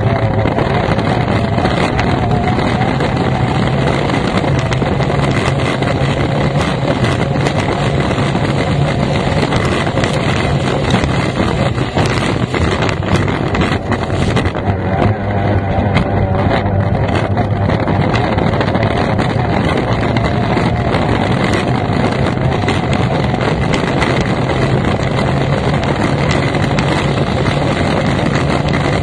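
F1 racing powerboat's outboard engine running hard at speed, heard from the cockpit, a steady loud drone with wind buffeting the microphone.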